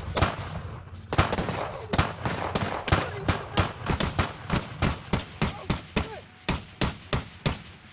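Gunfire: a long string of sharp single shots, about three a second and unevenly spaced, starting about a second in and stopping just before the end.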